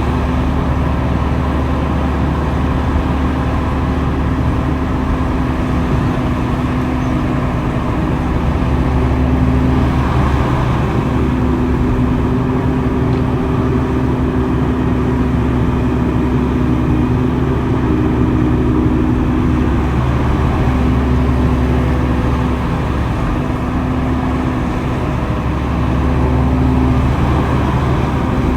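Diesel engine of heavy earthmoving machinery running steadily under work, with a deep hum and a steady drone that dips out briefly several times.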